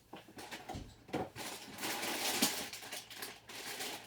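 Hands rummaging through small plastic building pieces: scattered clicks, then a stretch of dense rustling and clattering from about a second and a half in.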